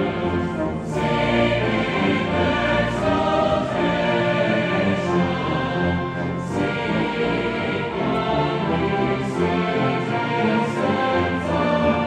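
Mixed choir singing with a brass band accompanying: cornets, euphoniums and tubas, with timpani, in a Christmas choral-and-brass arrangement.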